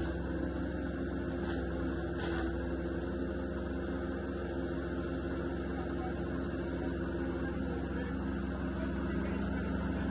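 Bluebird SHR 1000 petrol wood chipper running steadily at a constant engine speed.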